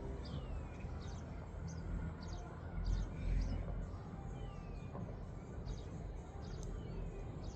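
Wind rumbling on the microphone, with scattered short high chirps and a few brief falling whistles from small calling creatures through it.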